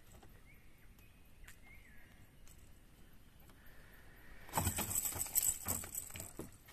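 A freshly caught fish flapping and knocking on a fiberglass boat floor as it is gripped and lifted, a burst of irregular slaps and rustling about four and a half seconds in, after a few faint clicks.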